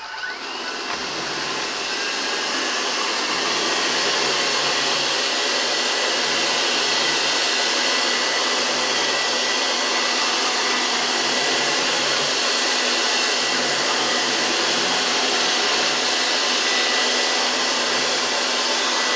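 GRUNDIG VCR 2330 robot vacuum cleaner starting up and running: its suction fan and brushes build up over the first few seconds, then run steadily with a faint high whine.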